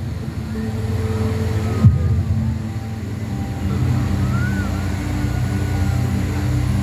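Bass-heavy music from a fountain show's sound system, recorded from the lakeside: sustained low notes that change pitch partway through. A short thump about two seconds in is the loudest moment.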